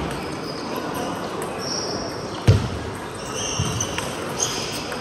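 Table tennis play: scattered sharp clicks of the ball on table and bats, with a louder dull thud about two and a half seconds in and a few brief high squeaks.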